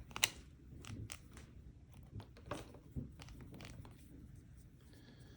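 Light clicks and scrapes of small phone parts and tools being handled during an iPhone screen repair, a few scattered ticks a second apart.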